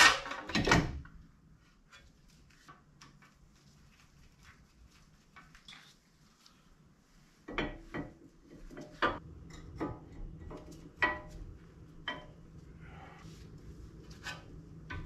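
Metal clanks and clinks of car brake parts being handled and fitted at the wheel hub: a two-piece brake rotor set onto the hub, then the caliper fitted over it. A cluster of sharp knocks comes at the start, then a quiet stretch, then more scattered clinks and knocks from about halfway on.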